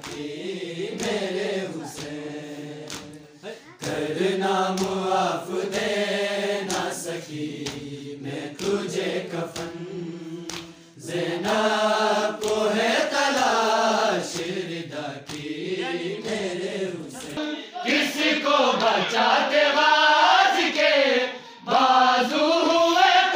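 Group of men chanting a noha, a Shia lament, in unison, phrase by phrase, with rhythmic hand strikes of matam (chest-beating) about once a second.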